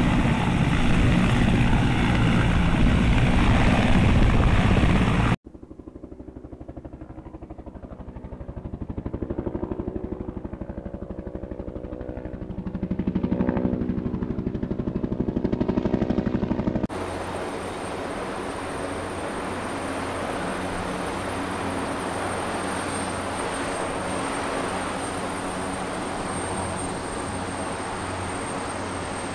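Helicopters in three short takes. First a large military transport helicopter hovering close, with loud, steady rotor and turbine noise, cut off suddenly about five seconds in. Then a helicopter flying past at a distance, its blade beat swelling and fading, and from about seventeen seconds a turbine helicopter near the ground, with steady rotor noise and a high, thin turbine whine.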